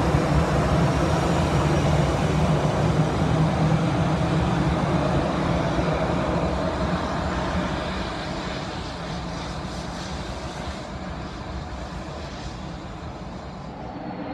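Boeing 737-800 jet engines at taxi power: a steady rumble with a low hum that fades after about eight seconds as the airliner turns and taxis away.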